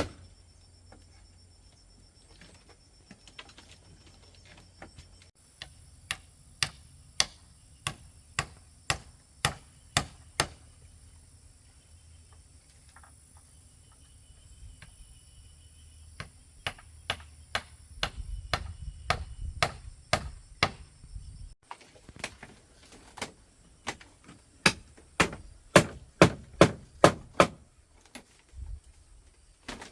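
A hand tool striking wood in steady runs of sharp blows, about two a second, with pauses between the runs.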